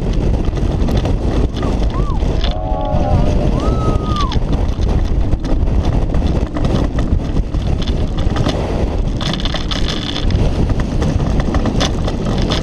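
Mack Rides launched roller coaster train running at speed through its inversions: a steady rushing roar of wind on the open camera mixed with the wheels rumbling and clattering on the steel track. About two to four seconds in, riders let out a few rising-and-falling shouts.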